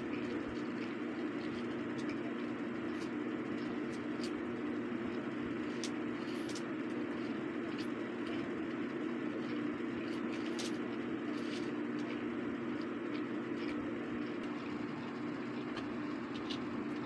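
A steady low drone with faint clicks here and there.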